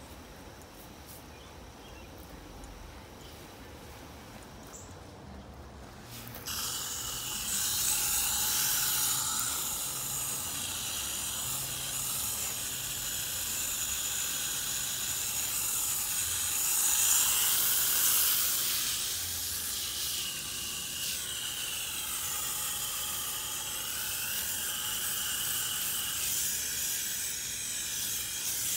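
Garden hose spray nozzle hissing as water sprays onto the soil and leaves of a raised garden bed. Quiet at first, then about six seconds in the spray comes on strongly and stays steady.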